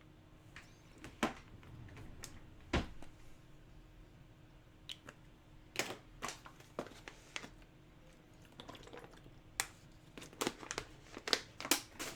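Plastic wrap crinkling and tearing in irregular crackles and clicks as a sealed box of basketball trading cards and its packs are opened by hand.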